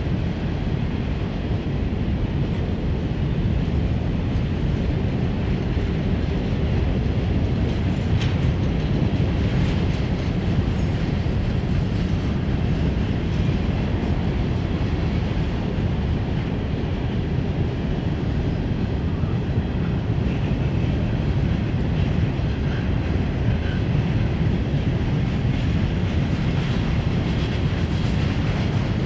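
Empty open-top hopper cars of a freight train rolling past: a steady low rumble of steel wheels on rail, with occasional clicks of wheels over the track.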